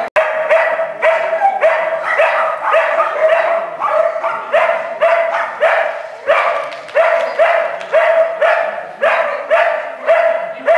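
A dog barking loudly and repeatedly at an even pace, about two barks a second, every bark on the same pitch.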